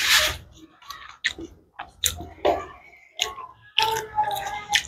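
Close-miked eating sounds: chewing with wet lip smacks and clicks at irregular intervals, from a mouthful of rice and side dishes eaten by hand.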